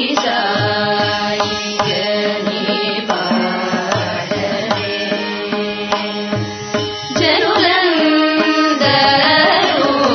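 Background music in Indian classical style, with a steady drone and regular hand-drum strokes; a singing voice comes in about seven seconds in.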